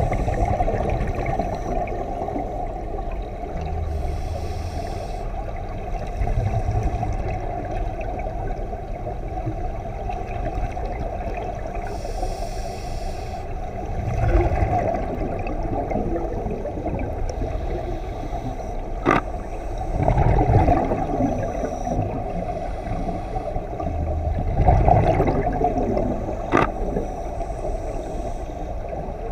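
Muffled underwater sound of scuba diving: steady low rumble with a diver's exhaled regulator bubbles swelling every five or six seconds, a brief hiss twice, and two sharp clicks.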